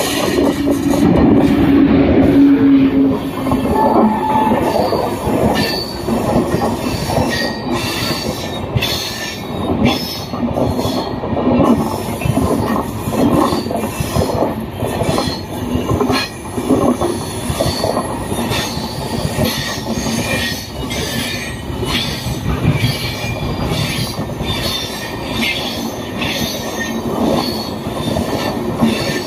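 Indian Railways WAP7 electric locomotive passing close, loudest in the first few seconds, followed by a long rake of LHB passenger coaches rolling by with a steady rumble and repeated clacks of wheels over the rail joints.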